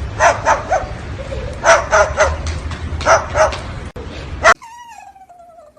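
A dog barking in quick bursts of about three barks, over a loud low rumble. The barking cuts off near the end and gives way to a quieter, high whine that falls in pitch.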